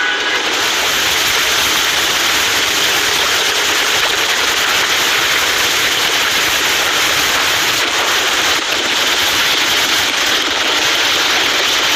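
Steady rushing hiss of sea water and wind.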